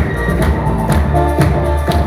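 Upbeat recorded music with a steady beat, about two beats a second, played loud over a hall's loudspeakers as runway music.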